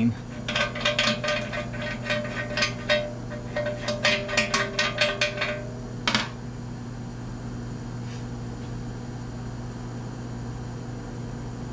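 Small metal tools and parts clicking and clinking as they are handled on a workbench, a quick run of light clicks over the first six seconds and one more click soon after. A steady low hum runs underneath.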